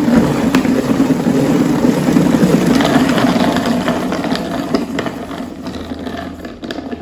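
Hand-cranked plastic salad spinner whirring as its basket spins washed leafy greens dry. The whir fades over the last few seconds as the basket slows.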